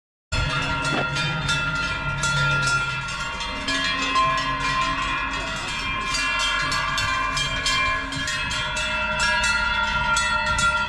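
Many large cowbells on a grazing herd of cows clanging together: a dense wash of overlapping bell tones with frequent strikes. It begins abruptly just after the start.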